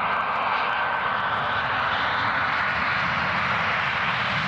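Boeing 737-800 airliner's CFM56-7B jet engines on landing approach: a steady rush of jet noise with a thin high whine that slowly falls in pitch as the aircraft passes, flaring just above the runway.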